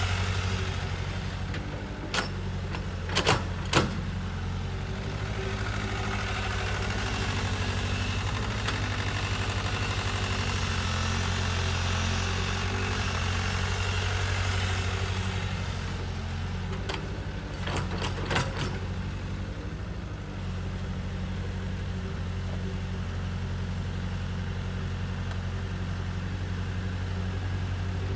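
Kobelco hydraulic excavator's diesel engine running steadily while working, with a deep, even drone. A few sharp knocks come about two to four seconds in, and again a little past the halfway point.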